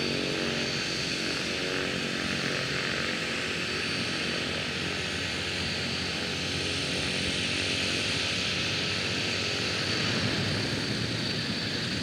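Skydiving plane's propeller engines running steadily, with a steady high whine over the engine hum.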